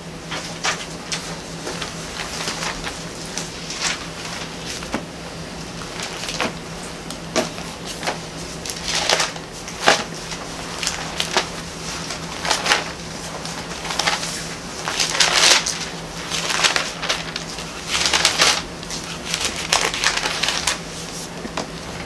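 Thin Bible pages being leafed through: a long run of irregular crinkling and rustling paper, with louder clusters of page flips now and then.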